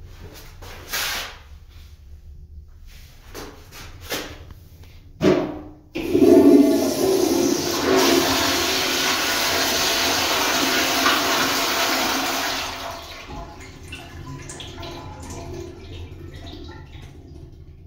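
Commercial toilet with a chrome manual flush valve flushing. A few short knocks come first, then a loud rush of water lasts about seven seconds and drops to a quieter flow that tapers away.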